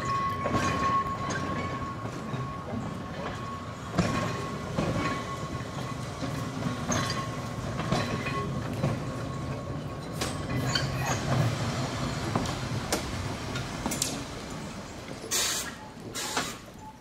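Vintage Manx Electric Railway electric tramcar running slowly past on street track: a low running rumble with a steady thin whine through the first part, and sharp knocks and clicks from the wheels over rail joints every second or two. Two short bursts of hiss come near the end.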